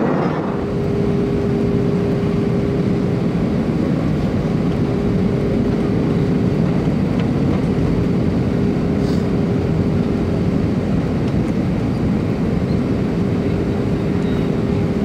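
Airbus A319 cabin noise heard from a window seat: a steady rush of airflow and engine noise with a steady hum starting about half a second in, as the airliner descends.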